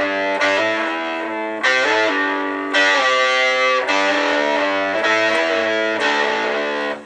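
Distorted electric guitar played through a DigiTech Whammy DT pitch shifter in harmony mode: a few long sustained notes, some bent or with vibrato, each doubled by a pitch-shifted harmony voice a set interval below. The notes cut off sharply near the end.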